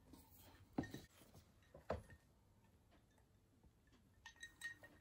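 A person drinking from a glass: two faint swallows about a second apart, then a few small clicks near the end, otherwise near silence.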